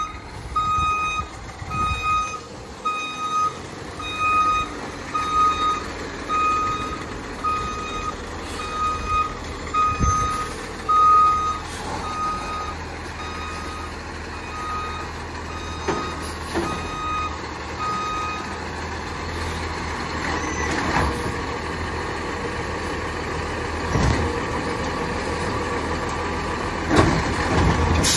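Battle LET2 McNeilus ZR garbage truck's reverse alarm beeping about once a second while the truck backs up, stopping about two-thirds of the way through. The truck runs underneath, with a few knocks.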